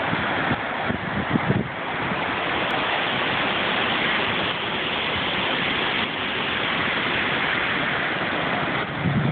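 Ocean surf breaking and washing up a sandy beach: a steady rushing noise, with a few low buffets of wind on the phone's microphone in the first two seconds.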